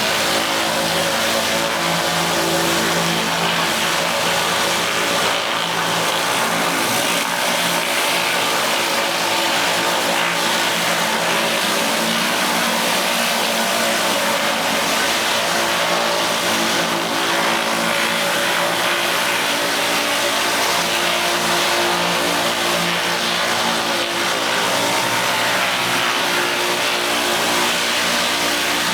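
Gas-engine pressure washer running steadily at working speed, with a continuous hiss of high-pressure water spraying.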